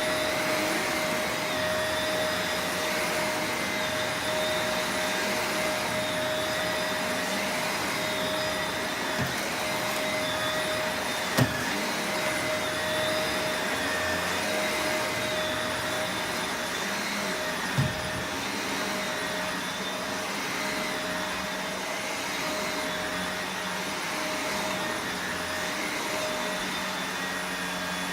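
Shark Rotator Professional Lift-Away upright vacuum running on carpet: a steady motor whine whose pitch wavers slightly as it is pushed back and forth. Two sharp knocks cut through it, one about eleven seconds in and another about six seconds later.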